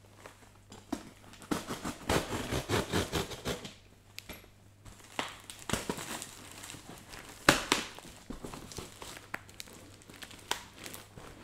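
Cardboard box and packing tape being pulled, torn and cut open by hand: irregular crinkling, rustling and scraping of card and tape, busiest in the first few seconds, with a sharp knock about seven and a half seconds in.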